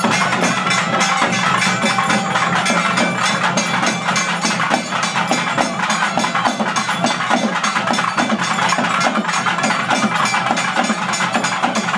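A group of barrel drums played with sticks in fast, dense, unbroken rhythm, with a steady held note under the beat.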